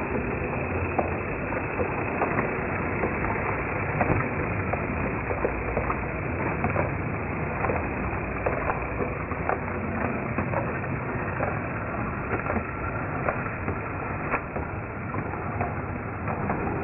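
A model railway goods train running past: the model locomotive's motor and the small metal wheels of a rake of four-wheeled wagons make a steady rolling rumble, with irregular clicks as the wheels cross rail joints and points.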